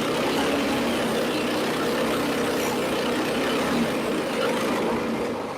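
An engine running steadily, easing off slightly near the end.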